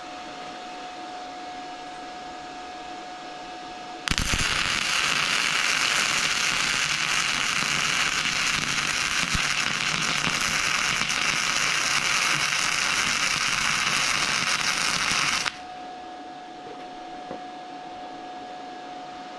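Flux-core arc welding: .030 flux-core wire burning onto 1/4-inch steel plate from a 110-volt Arc Captain MIG145 Pro, a loud steady crackle that starts suddenly about four seconds in, runs for about eleven seconds and cuts off. Before and after it, a steady machine hum.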